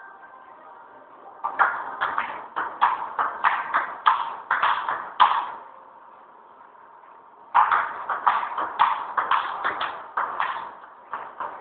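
Table tennis ball clicking back and forth off paddles and the table in two quick rallies, about three hits a second, with a pause of about two seconds between them.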